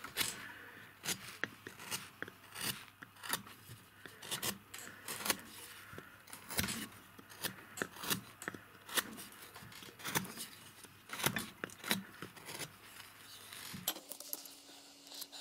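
A hand chisel cutting into limewood, short sharp cuts about two a second as shavings are pared off a roughed-out figure. The cuts stop about a second before the end.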